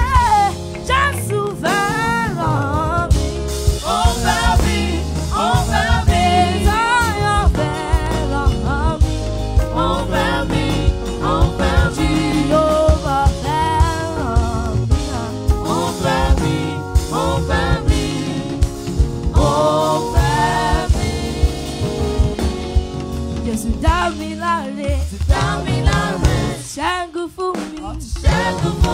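Live gospel praise music: a girl sings lead into a microphone over a band of drum kit, electric bass guitar and keyboard, with backing singers.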